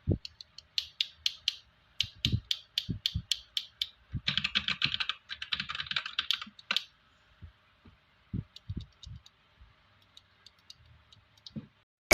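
Mechanical keyboard with DA x AJAZZ Cocoon 50g tactile switches being typed on: separate keystrokes, then a quick run of fast typing from about four to seven seconds in, then a few scattered keypresses.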